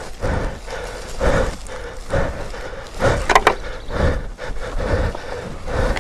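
Footsteps scuffing and crunching on loose dirt, rocks and brush, about one step a second, as a person scrambles down a steep slope, with heavy breathing.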